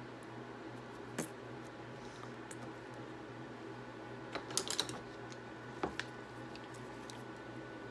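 Steady hum of a small electric desk fan, with a few light clicks and clatters of small objects being handled: one click about a second in, a quick run of clicks midway, and another click about six seconds in.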